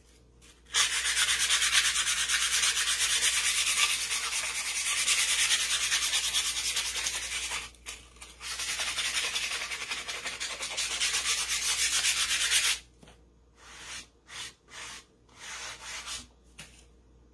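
Sandpaper rubbed by hand over a painted wooden pumpkin cut-out, smoothing the fuzzy grain of the raw wood. Steady back-and-forth sanding for about twelve seconds with a short pause partway, then a few brief strokes near the end.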